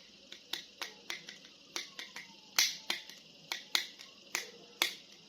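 A quick, uneven series of sharp clicks and taps, about three to four a second, from a plastic action figure being handled.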